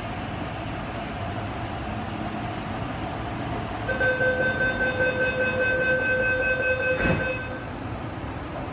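MTR R-Train's door-closing warning: a pulsing electronic beep tone starts about four seconds in and lasts about three and a half seconds. It ends with a sharp knock as the sliding doors shut, over the steady hum of the stopped train.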